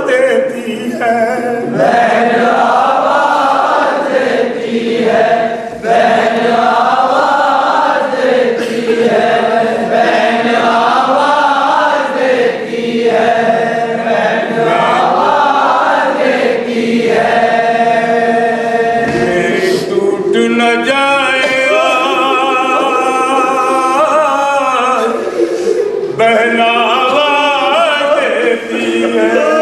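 Nauha, an Urdu Shia mourning lament, chanted by male voices in long, wavering sung phrases with short breaks between lines.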